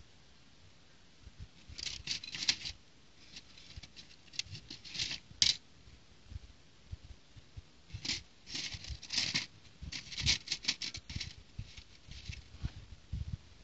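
Small plastic building bricks clicking and clattering against each other and a plastic plate as hands sort through them. The clicks come in irregular clusters from about a second and a half in.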